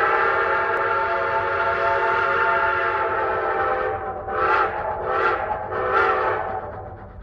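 Train whistle sounding a chord of several steady tones in one long blast, then three short toots starting about four seconds in, fading toward the end.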